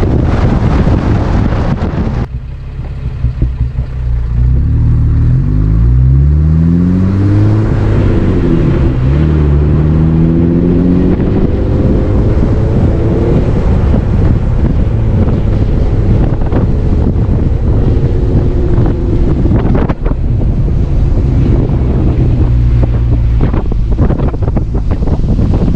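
A vehicle engine accelerating, its pitch climbing, dropping once as if at a gear change, then climbing again before settling into a steady cruising drone. Wind buffets the microphone throughout.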